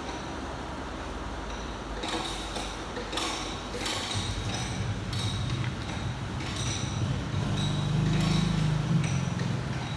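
Metal workshop noise: scattered metallic clinks and knocks with short ringing pings, and a low engine-like rumble that starts about four seconds in and grows louder near the end.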